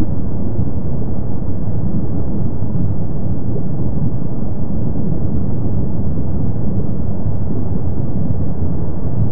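Kilauea's lava fountains erupting from the summit lava lake: a steady, low rumbling roar with no separate blasts.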